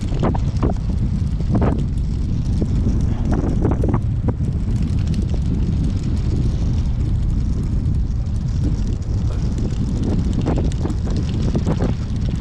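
Wind buffeting the microphone of a bicycle being ridden along a road, a steady low rumble with a few short clicks and knocks from the bike.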